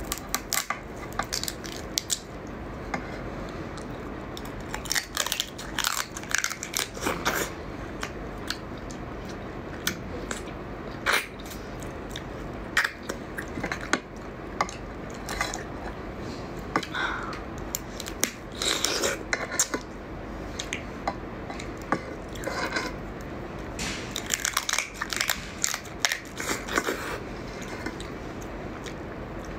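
Close-up eating sounds of raw swimming crab: shell and leg pieces being bitten, cracked and chewed, with irregular sharp crunches and crackles over wet chewing.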